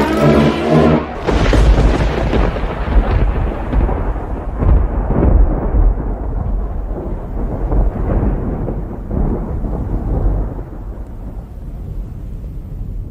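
A pitched sound cuts off about a second in and gives way to a long, deep rumble like thunder, which slowly fades away.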